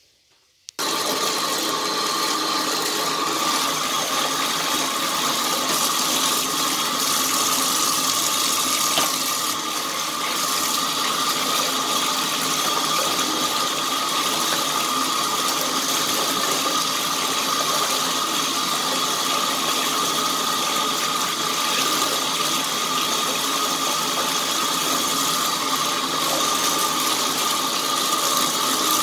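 Water from a bathtub tap pouring steadily into the tub and splashing over hands rinsing a sponge under the stream; the sound starts suddenly about a second in.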